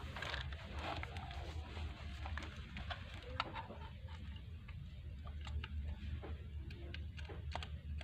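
Scattered faint clicks and taps of a screwdriver and small metal parts as a brake pad is fitted onto a washing machine's spin motor, over a steady low hum.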